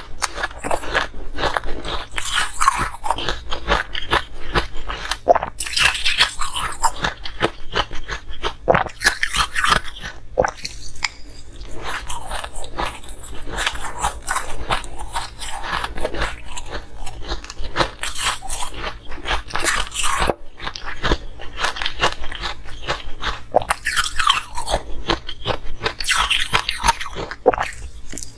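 Crushed ice being chewed and crunched in the mouth, close to a lapel microphone: a dense run of crisp crunches that goes on without pause.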